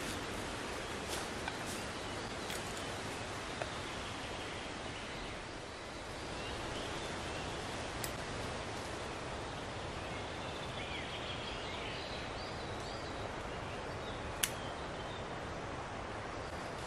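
Outdoor woodland ambience: a steady, even hiss of background noise with faint, scattered bird chirps and a few small, sharp clicks, the sharpest near the end.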